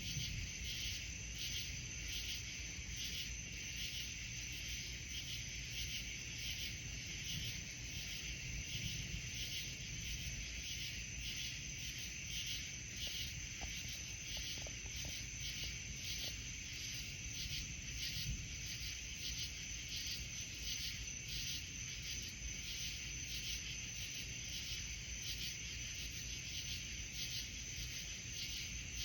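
Night insects, crickets, chirping in a steady chorus of evenly repeating pulses over a continuous high trill, with a low rumbling noise underneath that swells now and then.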